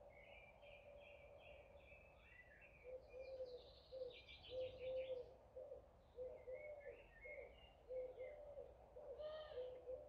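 Faint evening birdsong from several birds: high warbling phrases, with a quick burst of rapid trilled notes around four seconds in, over a string of short, low repeated calls.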